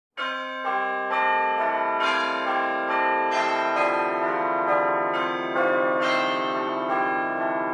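A melodic jingle of struck bell-like chime notes, about one or two a second, each ringing on and overlapping the next. It starts to fade near the end.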